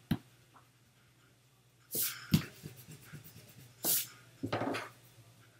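A pencil and a rubber eraser on drawing paper: a light tap at the start, then a few short, scratchy erasing rubs.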